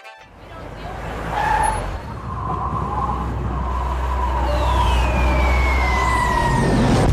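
Film sound effects: a low, steady rumble that swells in over the first couple of seconds, with a whistle falling in pitch over the last two and a half seconds and a sharp hit at the end.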